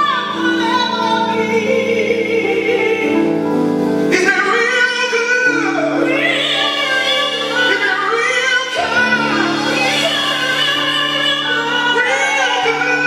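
Live gospel singing: a woman's voice in long, wavering melismatic runs over steady sustained accompaniment chords.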